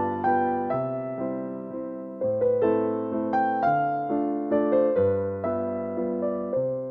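Background piano music: a slow, gentle melody of single struck notes over changing bass notes, each note dying away after it is played.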